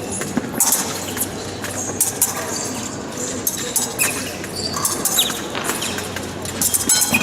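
Épée fencing bout in progress: sharp clinks and knocks of blade contact and footwork on the piste, with short squeaks of fencing shoes. A steady high electronic tone starts near the end.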